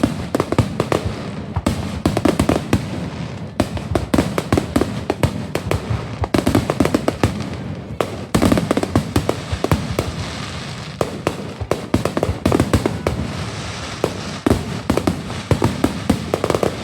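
Fireworks display: a dense, continuous crackling and popping of many fireworks bursts, with louder bangs scattered throughout.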